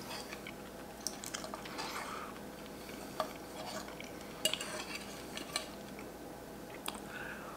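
A fork and knife scraping and clinking lightly on a plate while cutting into a fried egg, with a handful of scattered small taps.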